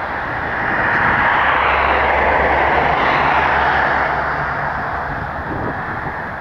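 An aircraft's engines passing: the noise swells about a second in, holds loudest through the middle with a low steady hum underneath, then fades away near the end.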